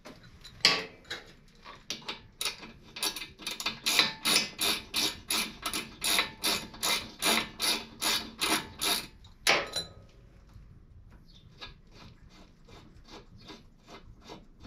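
Hand ratchet clicking in steady strokes, about three sets of clicks a second, as a brake caliper mounting bolt is backed out. After a louder click near the middle, the clicking turns fainter and quicker.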